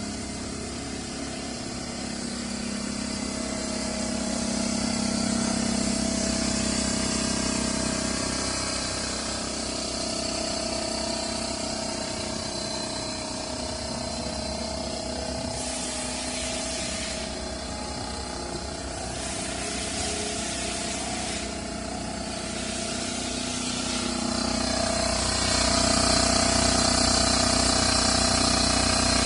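Oil-free DC piston air compressor running steadily. Bursts of air hiss come a little past the middle.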